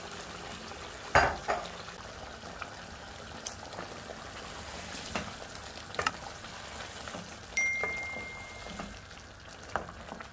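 A pot of githeri stew (maize, beans and potatoes in tomato sauce) sizzling and simmering while a wooden spoon stirs it, with a few sharp knocks of the spoon against the pot. A steady high beep sounds for about a second about three quarters of the way through.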